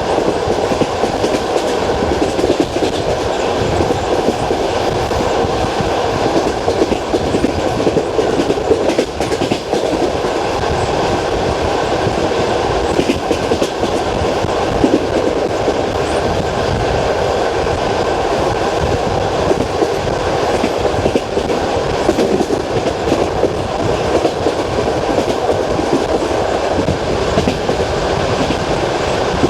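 Passenger train carriage's wheels clicking rhythmically over the rail joints of jointed track, the classic clickety-clack, under a steady rolling rumble of the moving train.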